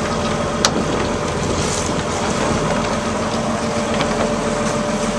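A lobster boat's engine running steadily under way, with the rush of wind and water past the hull. There is a sharp click about half a second in.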